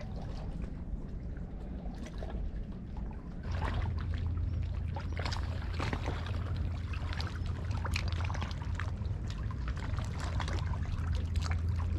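Shallow river water lapping and trickling among rocks at the shoreline, a steady wash full of small crackling ticks. About three and a half seconds in, a low steady rumble comes in under it and the whole sound gets a little louder.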